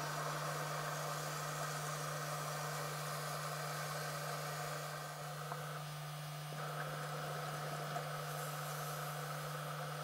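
Steady low hum under a constant hiss, the running noise picked up by an underwater video camera, with one faint click near the end.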